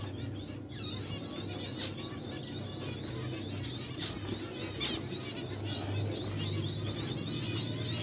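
Aviary finches chirping: a dense run of many short, high, rising calls from several birds, over a steady low hum.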